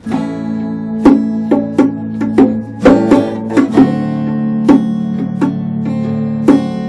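Small acoustic band playing live: strummed acoustic guitar, bass guitar and keyboard, with a hand drum struck in rhythm.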